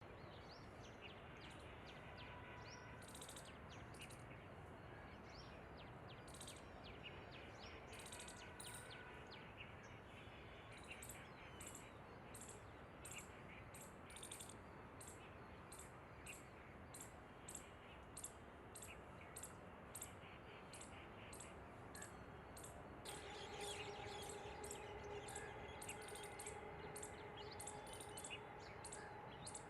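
Birds chirping faintly over background noise, with short high chirps coming about twice a second through most of the stretch. A steady low hum joins in the last third.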